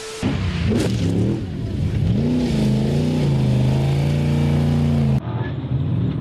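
Snowmobile engine revving hard, its pitch rising and dipping and then held at high revs as the sled stands up on its tail in a wheelie; about five seconds in the engine note drops away. A short steady beep from a video transition sounds at the very start.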